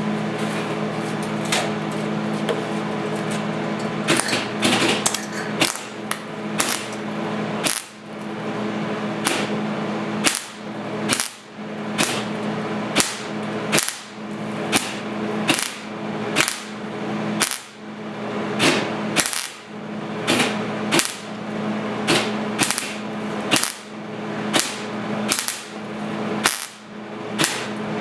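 Welding arc crackling as rust holes in a thin steel motorcycle seat pan are welded up: a continuous run for about the first eight seconds, then many short tack welds about a second apart, each starting with a sharp pop. A steady hum runs underneath.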